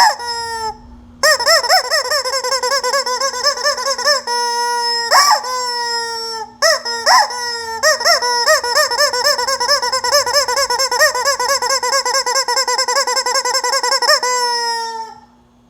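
Rubber chicken toy squeezed and squawking: a short squawk, then several long, high, warbling squawks, the longest running about eight seconds before trailing off.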